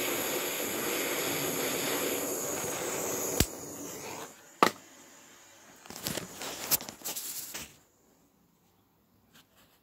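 Handheld butane blowtorch flame hissing steadily while it melts solder on lead sheet, cut off with a sharp click after about three and a half seconds. A second loud click follows about a second later, then a few light knocks and clicks from handling, and then near silence.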